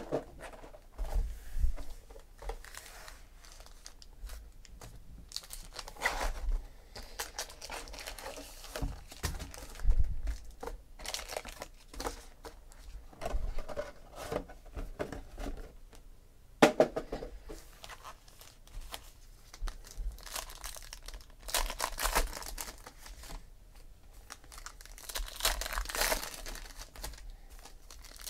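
Trading-card pack wrappers rustling and crinkling as they are handled, with the cardboard hobby box being moved about and packs torn open by hand. A single sharp knock about halfway through is the loudest sound, and a longer stretch of crinkling and tearing comes near the end.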